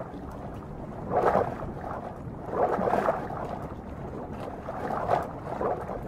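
Rushing, bubbling water churned up as a diving bird plunges and swims underwater, swelling in three surges, about a second in, near the middle and near the end.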